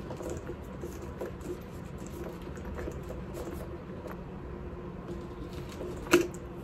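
Faint handling sounds: light ticks and rustles of fingers working a leather handbag's handles and key bell, with one sharper click about six seconds in.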